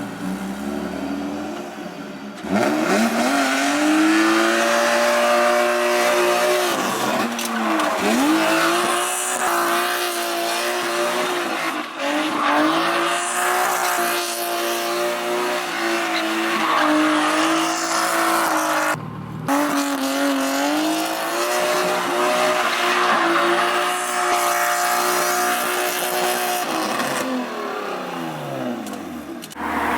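A straight-piped BMW M50B25 2.5-litre inline-six held at high revs while the car drifts, tyres squealing. The revs dip briefly a few times and fall away near the end.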